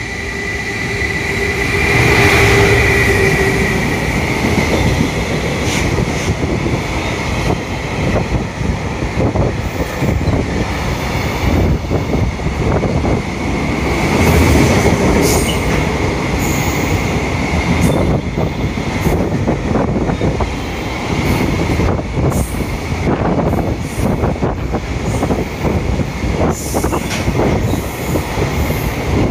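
Train running past on steel rails, loud for the whole passage. Many quick clicks come from the wheels going over the rail joints, under a steady high-pitched wheel squeal that swells about two seconds in and again about halfway through.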